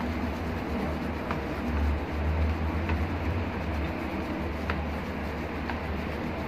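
Tint brush stirring hair-dye cream in a plastic bowl, soft scraping with a few faint taps against the bowl, over a steady low background rumble.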